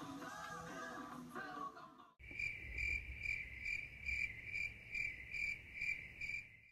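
Background music for about two seconds, then a sudden switch to a cricket chirping in an even rhythm, about two chirps a second, until the sound cuts off.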